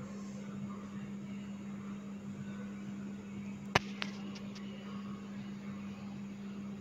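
A steady low hum with a faint hiss, and a sharp click a little under four seconds in, followed by a softer one.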